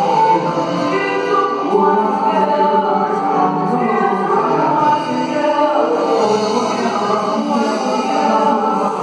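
Live gospel worship song: a small mixed group of singers on microphones, a man and two women, singing together with a band of electric guitar and keyboard.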